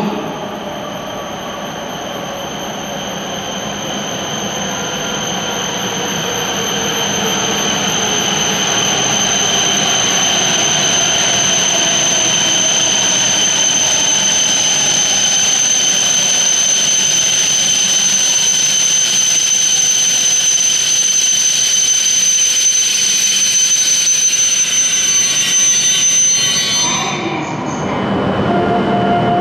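E7/W7-series Shinkansen train pulling into the platform and braking: its motor whine falls slowly in pitch while a steady high-pitched squeal builds and holds. The sound cuts off abruptly about 27 s in and is replaced by the running sound of a train standing at or leaving the platform.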